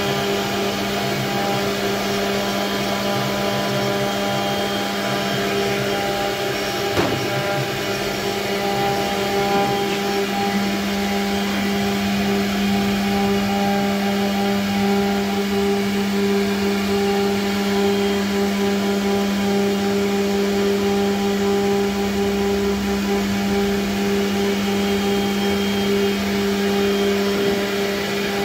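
CNC router running: a constant electric whir with a strong, unchanging low hum, with one faint tick about seven seconds in.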